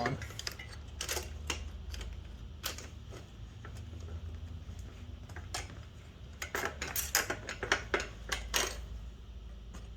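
Light metallic clicks and rattles from a child's bicycle rear wheel and chain being worked off the frame. The clicks are scattered at first, then come in a quicker run in the second half, over a low steady hum.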